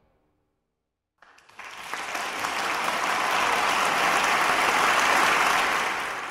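Applause, starting after about a second of silence, swelling to a steady clapping and then fading away near the end.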